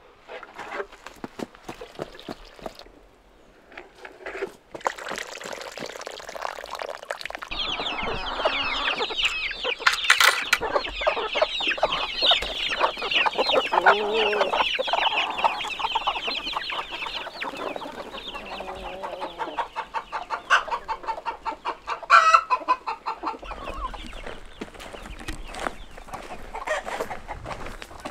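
A flock of domestic chickens clucking and squawking together in a dense, continuous chatter, with a quick run of repeated notes a little past two-thirds through. For the first several seconds there are only scattered light knocks before the clucking builds.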